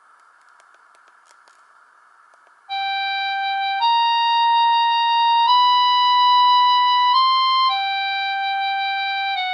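Samsung GT-E1050 mobile phone playing a ringtone through its small loudspeaker: after faint hiss and a few light clicks, a slow electronic melody starts a few seconds in, made of long held notes of about a second each, stepping up and back down in pitch.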